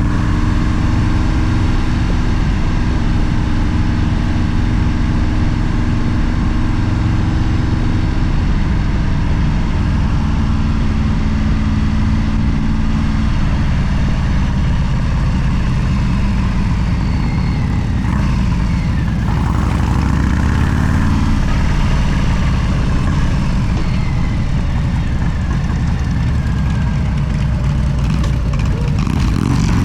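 A vehicle engine running steadily and loudly, with a low continuous drone whose pitch shifts a few times, gliding up and down about two-thirds of the way through.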